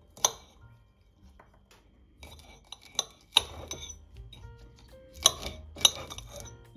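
Kitchen utensils clinking and knocking against dishes: one sharp clink just after the start, a couple around three seconds in and two more near the end, over soft background piano music.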